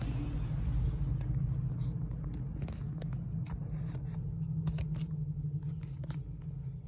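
2013 Honda Civic engine idling steadily in the bay while misfiring on cylinder 1, the misfire that makes the car shake. Scattered light clicks and knocks sound over it.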